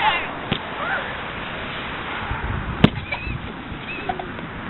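A basketball bouncing on wet pavement: a light bounce about half a second in and a sharp, loud one a little under three seconds in, over a steady hiss of rain. A couple of brief faint high calls come near the end.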